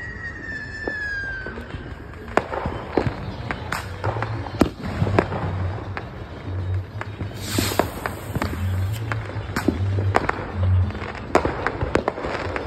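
Fireworks: a rocket's whistle falling in pitch at the start, then scattered bangs and crackling reports, with a brief hiss about halfway through.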